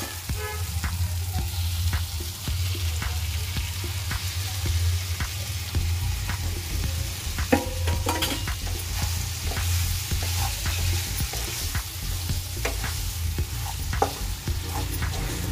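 Onion masala and raw diced chicken sizzling in a nonstick kadai on medium flame, with a wooden spatula scraping and tapping against the pan in frequent short strokes. About halfway through, a louder cluster of knocks comes as the chicken pieces go in and are turned into the masala.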